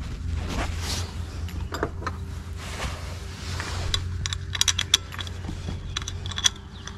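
Small metal clinks and clicks as a valve cover and its bolts are handled and fitted on a V-twin mower engine, a few sharp ones clustered past the middle and one more near the end, over a low steady background hum.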